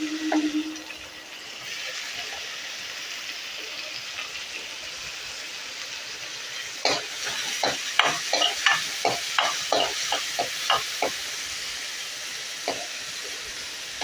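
Chopped onion and garlic sizzling in hot oil in a pan, a steady hiss. From about halfway through, a spatula stirs them and knocks against the pan two or three times a second.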